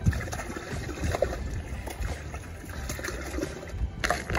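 Water and live trout splashing and trickling out of a tipped plastic bucket into a slushy hole in pond ice, with irregular small spatters and crackles.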